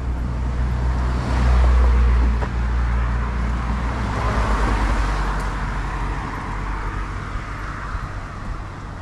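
Street traffic: a motor vehicle's engine hums close by, loudest in the first couple of seconds. Then the tyre rush of a passing car swells about four to five seconds in and fades away.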